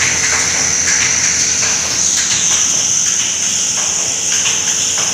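Vibratory bowl feeder and linear feeder of an automatic assembly machine running: a steady high hiss over a low hum, with irregular light clicks from small parts moving along the track.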